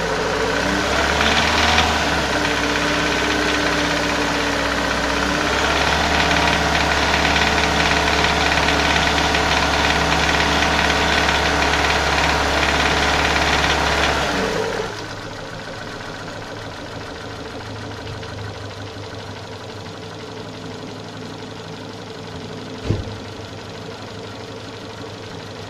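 Renault K4M 1.6 16-valve petrol engine held at raised revs with a knocking rattle, which the owner likens to pinging from bad petrol and which appears only while the throttle is held still. About 14 seconds in the revs drop back to a quieter idle, and one sharp click sounds near the end.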